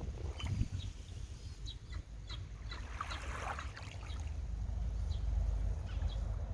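Calm seashore ambience: a low, steady rumble of water and distant town, with short bird chirps scattered throughout and one louder bird call about three seconds in.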